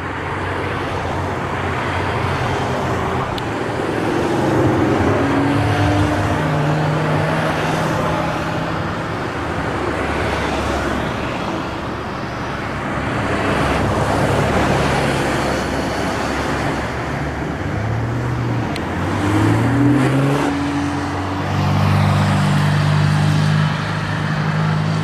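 A string of Porsche sports cars driving past one after another, engine and tyre noise swelling and fading as each goes by. Later an engine pulls away with its note climbing in steps through the gears.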